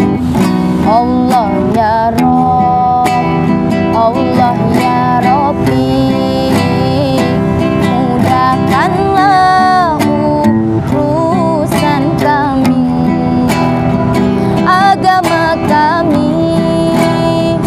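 A woman singing an Islamic sholawat with a wavering, ornamented melody, accompanied by a strummed acoustic guitar; her voice comes in about a second in, over the guitar.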